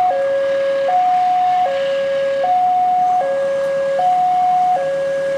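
Level-crossing electronic warning alarm sounding a steady alternating high-low two-tone, the pitch switching about every 0.8 seconds, as a train approaches the crossing.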